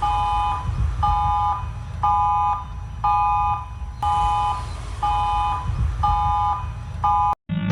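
Emergency-alert-style electronic alarm beeping: a chord of steady tones, each beep about half a second long, repeating about once a second over a low rumble. It cuts off suddenly just before the end, and a different steady droning tone takes over.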